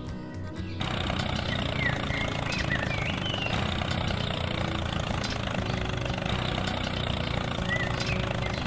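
Engine running steadily, cutting in suddenly about a second in, with a few bird chirps over it.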